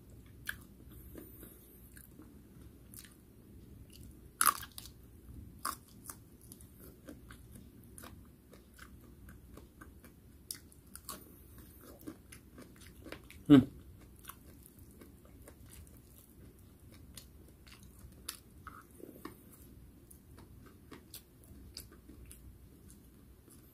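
Close-up mouth sounds of a person biting and chewing fried food, with many small crunches and wet clicks. A louder crunch comes about four seconds in, and a louder low, falling mouth sound about halfway through.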